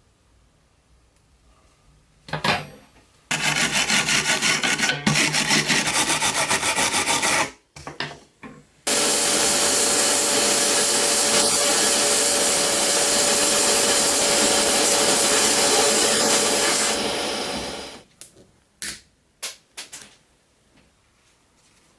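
Workshop tools working a new grille part for a toy truck. A fast, even rasping runs for about four seconds, then come a few short scrapes, then a steady machine whir for about eight seconds, and a few light knocks near the end.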